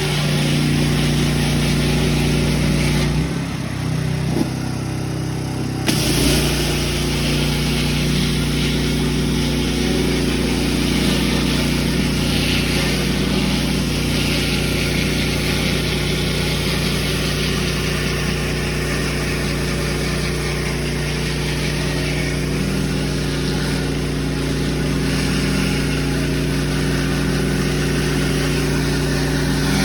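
Gas-engine pressure washer running steadily with the hiss of its high-pressure spray on concrete; the spray stops for about three seconds near the start, then starts again.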